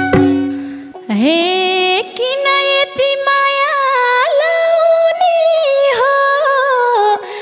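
A woman sings a long, ornamented line of a Nepali dohori folk song. Her voice enters about a second in with an upward scoop and then holds and bends long notes, while the drums have dropped out.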